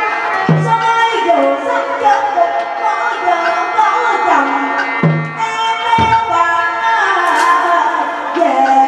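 Hát bội (Vietnamese classical opera) ensemble music: a shifting melody line over occasional drum strokes.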